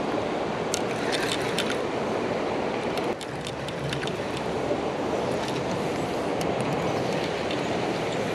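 Steady rush of river water running over shallow rocks. About a second in there are a few small clicks from a spinning reel being handled. The rush dips suddenly about three seconds in, then comes back.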